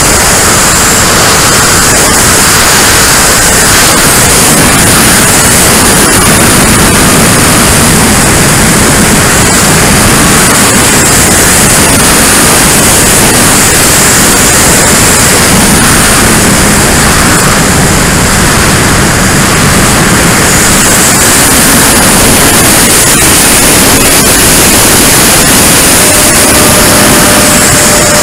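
Loud, steady rushing hiss of airflow and fan noise picked up by a camera riding on a Freewing T-33 Shooting Star electric ducted fan RC jet in flight. A steady tone joins near the end.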